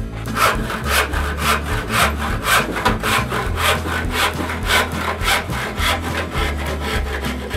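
Handsaw cutting through a board clamped in a Moxon vise. It saws in quick, even back-and-forth strokes, about three to four a second, starting about half a second in.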